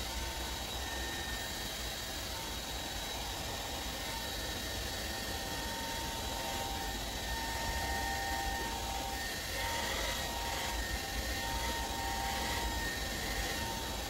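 Handheld hair dryer running steadily: an airy rush with a steady motor whine, growing a little louder about halfway through.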